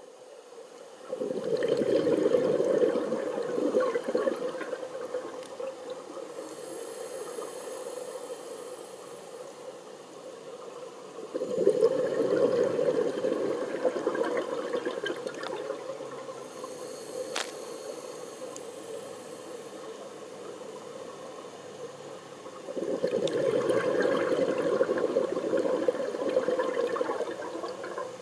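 Scuba diver breathing through a regulator underwater: three surges of exhaled bubbles about eleven seconds apart, each lasting a few seconds, with a faint hiss between them. A single sharp click comes about halfway through.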